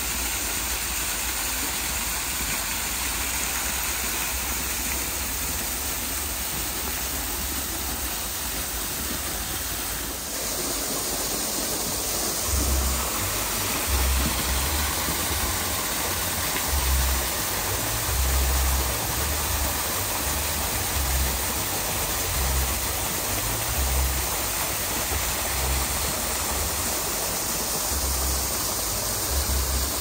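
Steady rush of falling water from a garden water feature. From about twelve seconds in, low rumbles come and go underneath it.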